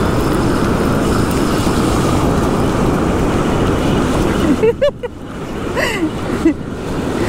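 Ocean surf breaking and washing up the beach, with wind buffeting the microphone, a steady wash of noise. About two-thirds of the way through it eases off and a few short pitched vocal exclamations are heard.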